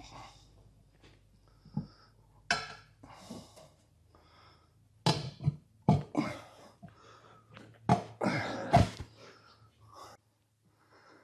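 A small riding-mower tire being worked by hand over its wetted rim on a tire-changer stand: a scattered series of short rubbing and handling sounds and light knocks of rubber and metal, loudest about five and eight seconds in.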